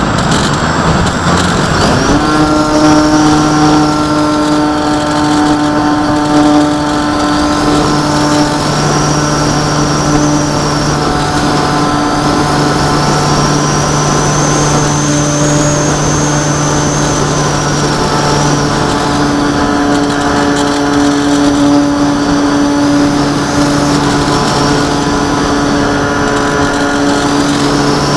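Light aircraft engine running steadily with a high, slowly wavering whine, over a haze of wind noise. The steady engine tone sets in about two seconds in.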